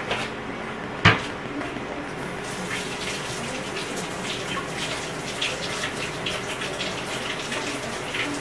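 A sharp knock about a second in, then a kitchen tap running, water splashing into the sink for most of the rest.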